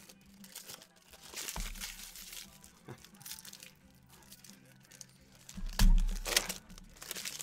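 Baseball trading cards handled and sorted by hand, the cards rustling and flicking against each other. A stack is set down with a dull thump about a second and a half in, and again, louder, just before six seconds.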